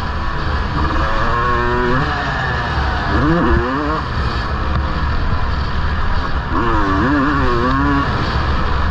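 1999 Honda CR250R's two-stroke 250 cc engine being ridden, revving up and down: the pitch rises sharply about three seconds in and wavers again near the end, over a steady low rumble.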